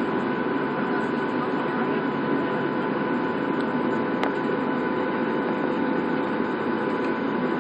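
Cabin noise inside a Boeing 737 taxiing: a steady rush from the jet engines at low power, with a steady high whine over it and one sharp click about four seconds in.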